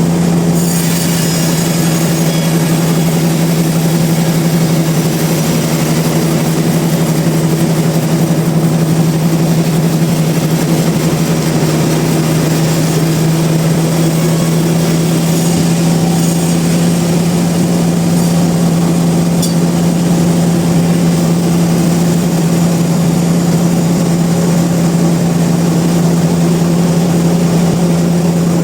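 Sawmill machinery running with a loud, steady, unchanging hum.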